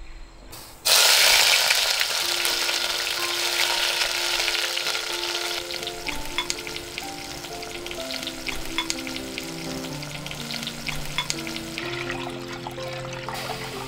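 Sliced tomatoes sizzling in hot oil in a clay pot, with scattered pops. The sizzle starts abruptly about a second in and slowly eases. Near the end water is poured into the pot and the sizzle dulls.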